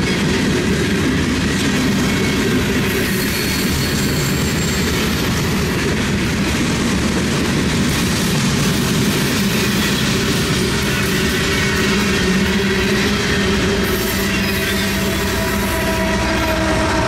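Freight cars of a long CN freight train rolling past at close range: steady, loud wheel-and-rail rumble with thin steady tones of wheel squeal running through it.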